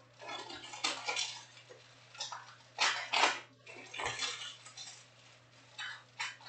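Foil trading-card pack wrappers being ripped open and crinkled by hand: an irregular string of short tearing and rustling bursts, the loudest about three seconds in.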